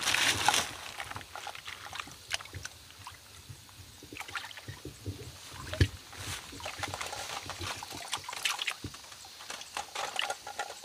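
Hands sloshing and groping in shallow muddy water to catch fish, with small irregular splashes and clicks. A plastic bag rustles loudly in the first half second.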